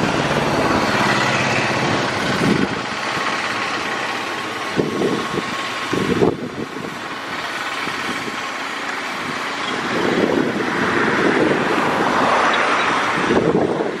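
Motor vehicle engine and road noise, steady with several swells as vehicles pass.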